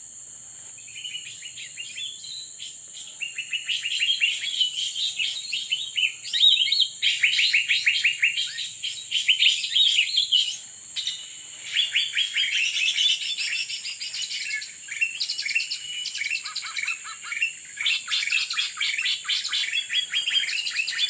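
Songbird calling in fast runs of sharp chirping notes, with short pauses between phrases, over a steady high insect-like buzz.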